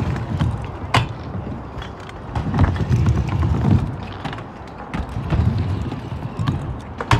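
Stunt scooter wheels rolling on concrete, a low rumble that swells and fades, with a sharp knock about a second in and another near the end, plus lighter clicks.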